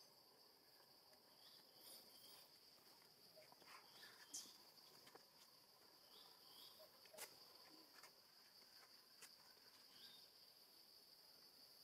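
Near silence over a faint, steady, high-pitched insect drone, with a few faint scattered clicks and short chirps.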